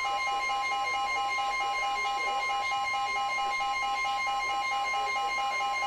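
Emergency Alert System attention signal: a loud, steady two-tone alarm tone held without a break.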